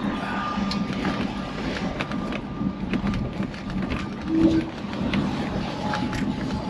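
Cabin noise of a 1975 Rolls-Royce Silver Shadow I on the move: the 6.75-litre V8 running with road noise, a steady low hum and irregular light clicks and creaks from the interior. A brief low tone sounds about four seconds in.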